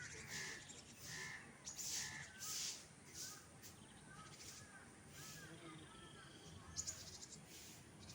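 Faint outdoor birds calling: about four harsh, rasping calls in the first three seconds, then a quick series of short chirps.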